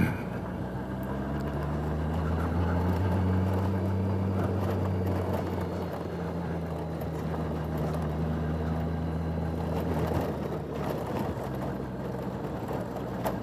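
Motorcycle engine running steadily at low road speed on a rough, potholed dirt road, with road noise underneath; the engine note eases off about ten seconds in.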